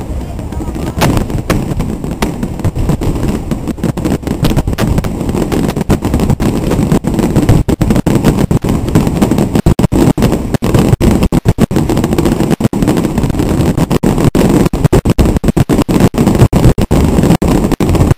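Aerial fireworks going off in a rapid barrage of bangs and crackles, the explosions coming thicker and faster toward the end.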